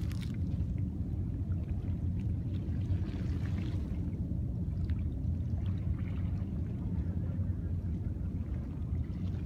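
Seawater sloshing against the foot of a concrete breakwater over a steady low rumble.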